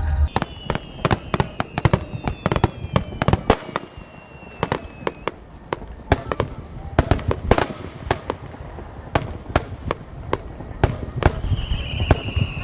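Aerial fireworks going off in quick succession: many sharp bangs and pops at irregular intervals, with whistling shells that fall slowly in pitch during the first five seconds and again near the end.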